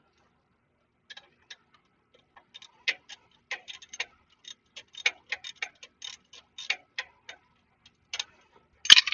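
Ratchet wrench clicking in short, irregular runs as it is worked back and forth on a 14 mm flexplate bolt, with one loud metallic clank near the end.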